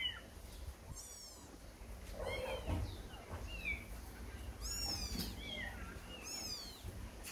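A young kitten mewing: a string of short, high-pitched cries, the loudest about five and six and a half seconds in.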